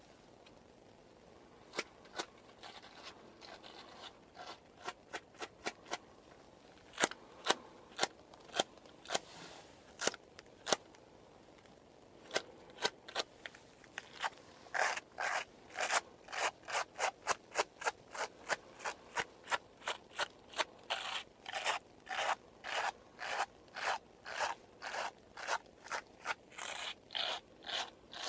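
Scissors snipping close to the microphone, scattered at first, then settling from about halfway into a steady run of about two snips a second, with soft rubbing between the cuts.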